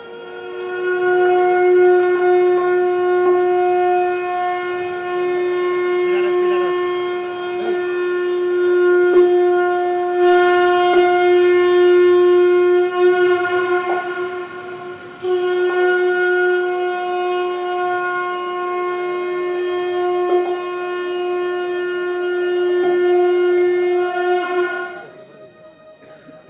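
Conch shell (shankh) blown in two long, steady blasts at one pitch, the second starting after a brief break about fifteen seconds in; it cuts off sharply near the end. It is the blast that closes a Krishna scene in a Mahabharata stage play.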